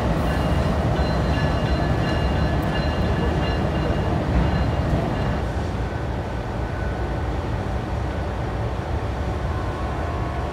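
GEU-20 diesel-electric locomotive engine running as the locomotive moves slowly through the yard. Its low, steady rumble eases a little about halfway through as it pulls away.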